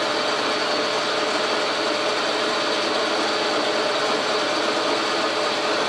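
Logan metal lathe running steadily while turning a 2-inch aluminium rod under power feed. It is taking a healthy cut near the end of the pass, a constant machine hum with an even hiss.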